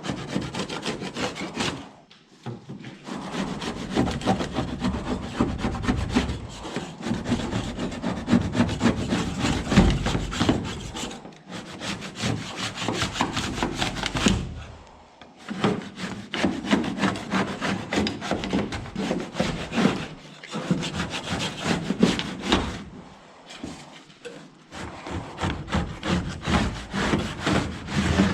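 Hand scraper scraping paint off a boat hull in quick, repeated rasping strokes, in runs broken by several short pauses.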